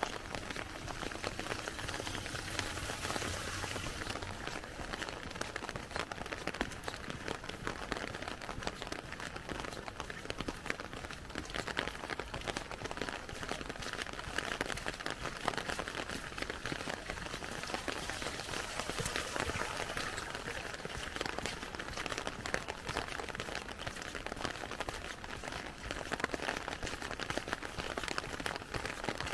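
Rain pattering steadily on an umbrella overhead, a dense, even patter of many small drop ticks.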